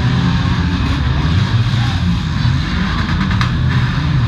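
Several demolition derby cars' V8 engines running hard together, a loud, steady engine din.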